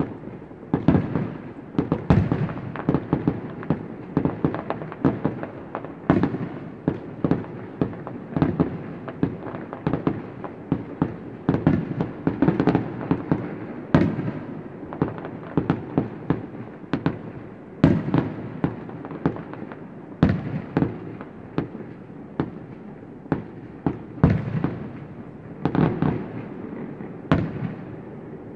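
Aerial fireworks display: a fast, dense run of shell bursts, several bangs a second over a continuous rumble, thinning out near the end.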